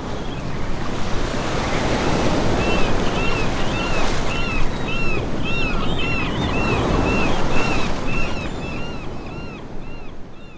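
Ocean surf with wind, and a bird calling in a quick repeated series from about two and a half seconds in; the sound fades out near the end.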